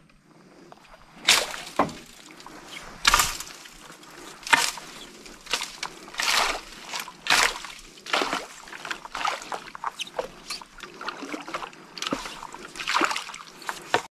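Water splashing and sloshing in a string of short, irregular bursts, about one or two a second, beside a small boat.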